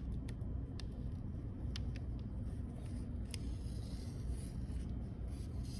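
A plastic pry tool (black stick) rubbing and scraping along new display adhesive as it is pressed down onto an iPhone frame, with scattered light clicks. A steady low hum runs underneath.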